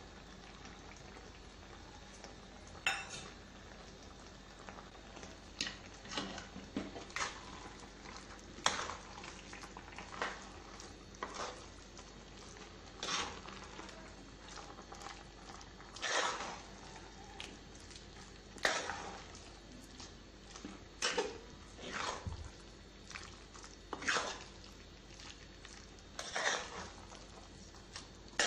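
Steel spoon stirring and scraping a thick mix of mashed tapioca, chicken masala and egg around an earthenware pot. There are irregular scrapes and knocks every second or two over a faint steady hiss.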